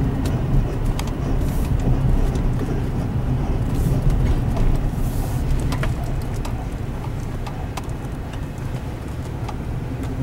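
Inside a moving vehicle's cabin: a steady low engine and tyre hum while driving slowly, with scattered light clicks and knocks. It gets a little quieter in the second half.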